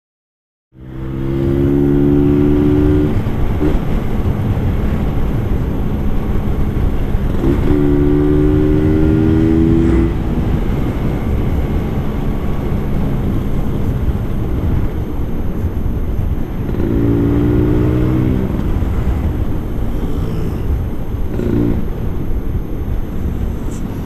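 Classic Vespa scooter's two-stroke single-cylinder engine running on the move, with a heavy rushing noise, starting after a moment of silence. A steady pitched note stands out three times, for a couple of seconds each.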